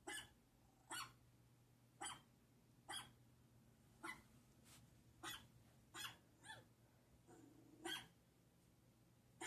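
Faint, short yelps like a puppy's, repeating about once a second, a strange noise that seems to come from the PC.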